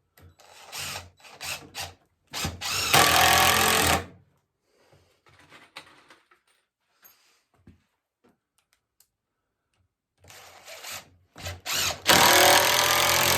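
Power drill driving a screw into the wood of a chair, in short trigger bursts that end in a steady run of about a second and a half. It happens twice, once near the start and again near the end.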